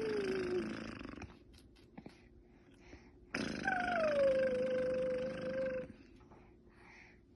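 A woman making a strange, drawn-out raspy noise in her throat, twice. The first is already going at the start and fades out after about a second. The second starts a few seconds in, falls in pitch and then holds steady for about two seconds.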